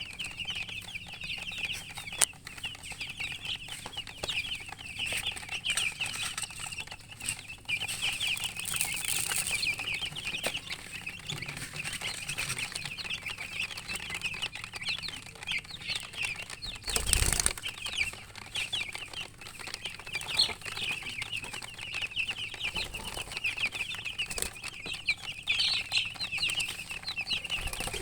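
A group of newly hatched chicks peeping loudly and without pause, many short, high, downward-sliding peeps overlapping. A brief noise about 17 seconds in.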